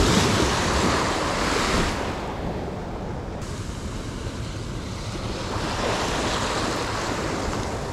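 Small waves washing onto a sandy shore, rising and falling twice, with wind rumbling on the microphone.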